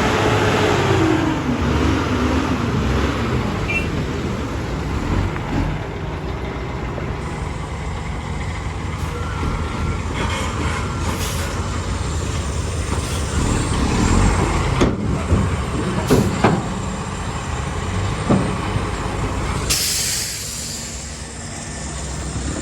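Mack truck's diesel engine running steadily, its pitch falling in the first couple of seconds. A few sharp knocks come in the second half, and a burst of air-brake hiss follows near the end.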